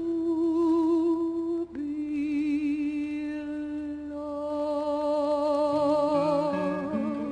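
A soprano singing two long held notes with vibrato, the second lower and starting after about two seconds, over soft accompaniment whose lower notes step upward near the end.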